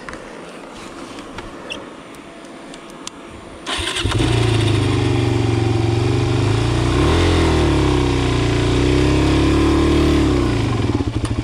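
Dirt bike engine starting up about four seconds in after being stalled, then running, revving up once and dropping back to a lumpy idle near the end.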